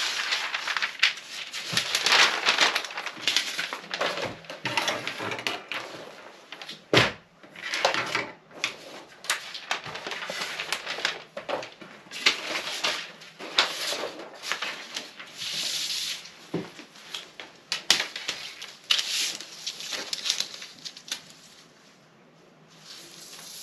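Fabric being handled and smoothed out for measuring, with irregular rustling and crinkling and an occasional sharp tap, the loudest about seven seconds in.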